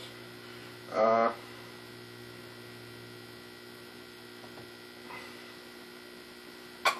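Steady electrical mains hum, with a short voiced sound about a second in and a sharp click near the end.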